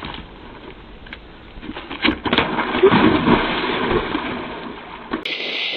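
A man falling into a swimming pool: a few knocks, then a splash about two and a half seconds in and water churning for a second or two.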